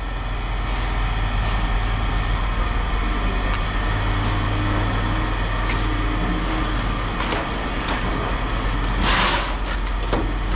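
A vehicle engine idling with a steady low hum, broken by a few light knocks and a short rushing noise about nine seconds in.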